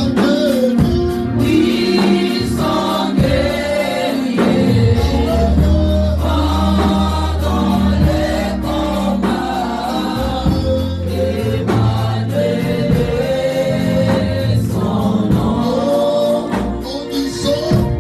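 Gospel worship music: a choir singing over band accompaniment with a low bass line and light percussion.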